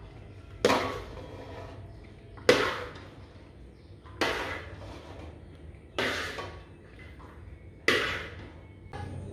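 Slotted metal spatula scooping stir-fried corn out of a wok and knocking against the pan and plate: five sharp knocks about two seconds apart, each ringing briefly.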